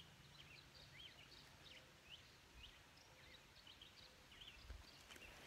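Faint birdsong: many short chirps, one after another, while the low ring of the last handpan (hang drum) note dies away in the first second or so. A soft thud near the end.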